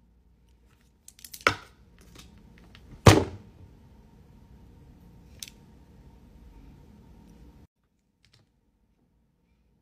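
Sharp plastic clicks and taps from handling a false-lash applicator and lash tray: a cluster of small clicks about a second in, one loud click about three seconds in, a lighter one later, over a faint room hiss that cuts off near the end.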